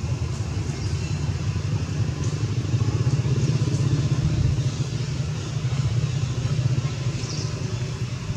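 A steady low rumble, with a few faint high chirps on top.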